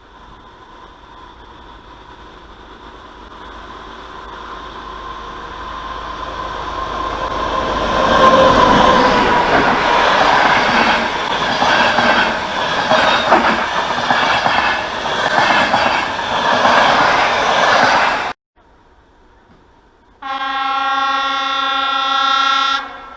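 A train approaching and passing, its rumble building from faint to loud, with the wheels clacking rapidly over rail joints. The sound cuts off abruptly, and a few seconds later a train horn sounds one steady blast of about two and a half seconds.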